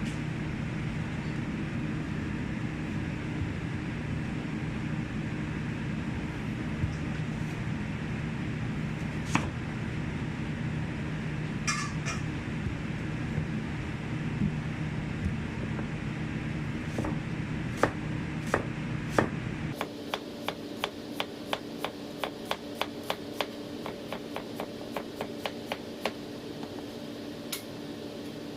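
A steady mechanical hum with a few scattered clicks and knocks, which cuts off about two-thirds of the way through. Then a knife chops on a cutting board in quick, even taps, about three a second, for several seconds.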